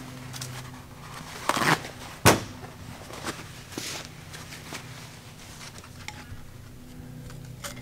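Scattered clinks and knocks of hand tools handled on a steel workbench as a screwdriver is picked up, the sharpest knock about two seconds in, over a low steady hum.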